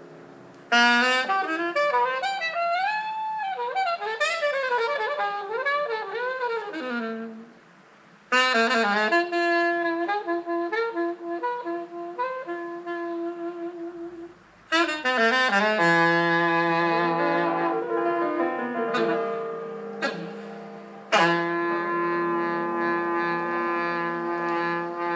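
Music played from a vinyl record on a RetroLife UD006 all-in-one turntable, heard through its pair of bookshelf speakers. A lead melody with wavering, gliding notes runs in long phrases, broken by short pauses about 8, 14 and 21 seconds in.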